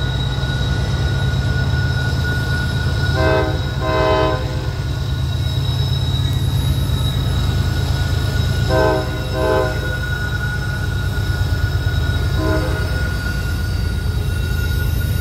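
Norfolk Southern double-stack freight train passing on a curve, its diesel locomotives rumbling and steady high-pitched wheel squeal running underneath. The locomotive air horn sounds five short blasts: two about three seconds in, two more about nine seconds in, and a single one near the end.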